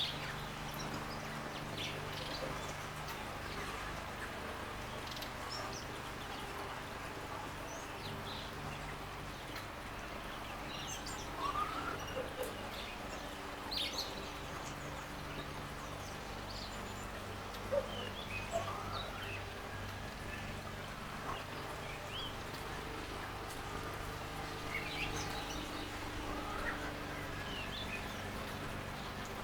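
Wild garden birds chirping and calling, with short sharp chirps scattered throughout and a few rising whistled notes, over a steady low hum and hiss.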